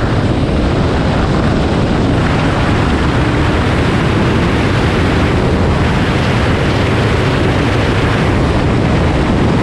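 Loud, steady rush of wind and road noise on a camera mounted on the outside of a moving car, with the car's running noise underneath.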